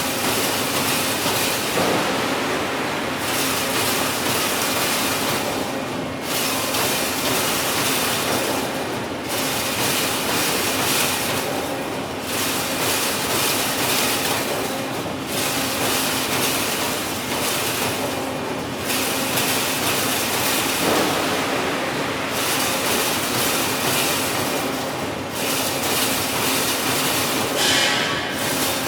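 Industrial wire fence-making machine running: a continuous dense metallic clatter that eases briefly about every three seconds as the machine works through a regular cycle.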